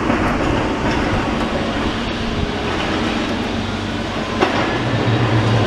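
Demolition excavator's diesel engine and hydraulics running steadily, with a single sharp knock about four and a half seconds in and a deeper engine hum coming up near the end.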